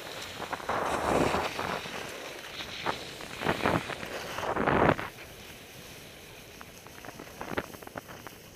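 Skis scraping and sliding on snow in several bursts as they turn, loudest about three and a half to five seconds in. After that they glide more quietly, with a few light clicks.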